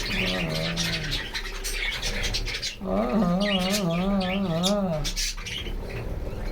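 A flock of budgerigars chattering, with a constant stream of quick, high chirps and squawks. About three seconds in, a low, wavering hum-like voice runs for two seconds, and a shorter one comes near the start.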